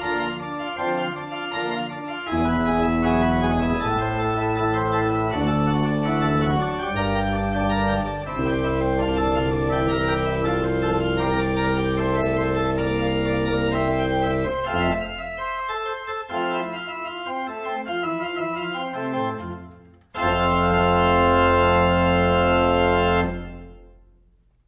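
Organ playing sustained chords of a slow piece, ending on a loud held final chord that dies away near the end.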